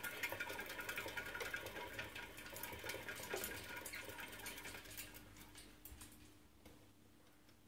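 Pet rat running in a green plastic exercise wheel: a fast, dense pattering and rattle of small feet and the spinning wheel, dying down over the last couple of seconds.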